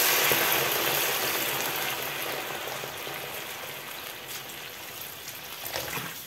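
Water pouring from a jug into a hot frying pan of sautéed asparagus, the pan's sizzle giving way to a watery rush that fades steadily as the pan fills.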